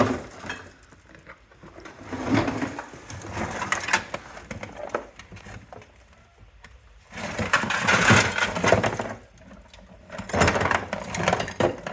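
Pieces of scrap number 2 copper clattering and clinking against each other and their container as they are handled for weighing, in three noisy bursts.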